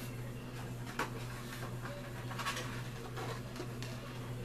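Paper and cardboard packaging rustling as items are handled, with a few light taps.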